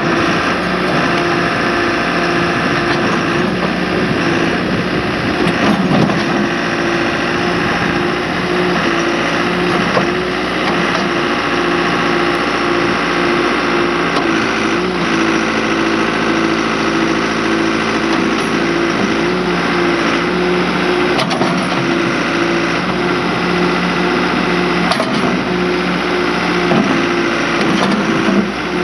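The diesel engine of a 1996 John Deere 310D backhoe loader running steadily, its pitch shifting slightly now and then.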